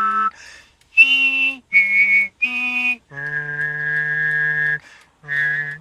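A voice singing a slow, wordless melody of held notes: five notes with short breaks between them, the fourth one long and lower than the rest.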